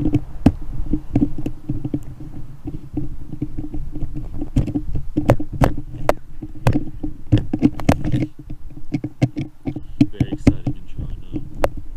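Handling noise from an action camera being fitted into its case or mount right at the microphone: irregular clicks, knocks and rubbing, over a low rumble.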